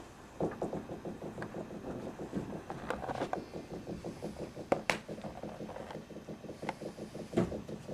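A litter of five-week-old Australian Shepherd puppies feeding together: a fast, continuous patter of small wet smacking and clicking sounds, with a sharper click about halfway through and a knock near the end.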